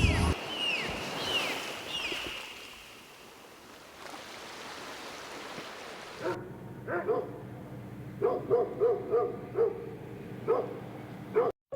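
Dog barking in a string of short, sharp barks, several in quick succession, starting about halfway through. Before that, a soft rushing noise.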